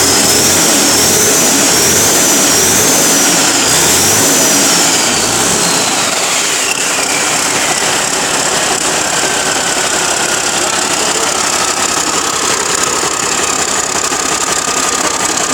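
Large turbocharged diesel engine running steadily. A high whine wavers, then falls in pitch about five seconds in as the engine settles a little quieter.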